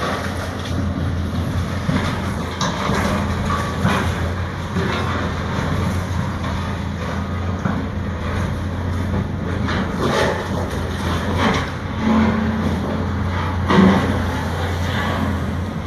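Heavy demolition machinery running, a steady low engine hum with scattered knocks and clanks, the loudest near the end.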